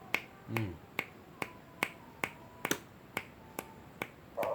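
A steady run of sharp clicks, a little over two a second, then a pet dove starts cooing near the end.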